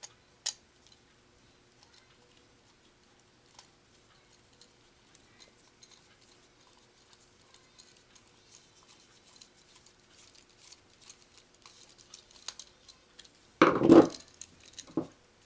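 Faint scattered clicks and handling noises from a hand crimping tool and a metal ring terminal being worked, with a short loud burst of noise near the end.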